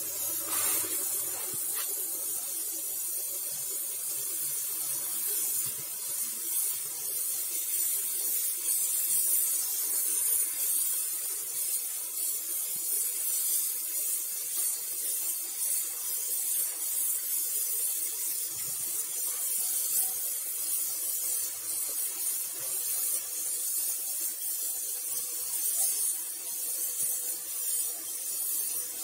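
Gravity-feed spray gun hissing as compressed air atomises paint onto a car's front bumper: a continuous high hiss that swells and eases slightly with the spray passes.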